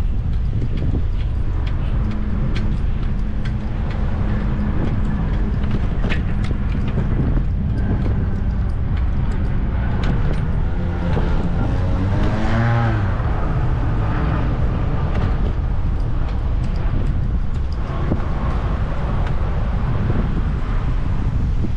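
Steady low outdoor rumble of traffic and wind on the microphone, with a motor vehicle passing about halfway through, its engine pitch rising and then falling as it goes by.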